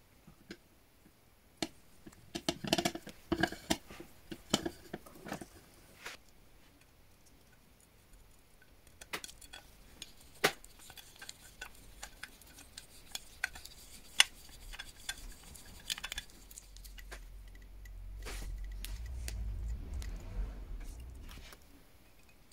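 Brass carriage clock case parts and glass panel handled by hand, giving scattered small metallic clicks and taps, in clusters. A low rumble rises for a few seconds in the second half.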